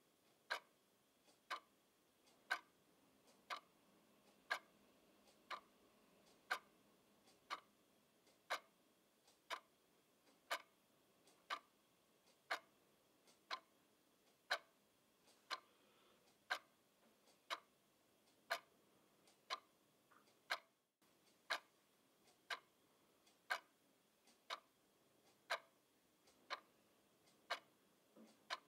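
Quartz twin-bell alarm clock ticking: one sharp, light tick each second as the quartz movement steps the second hand, steady and even throughout.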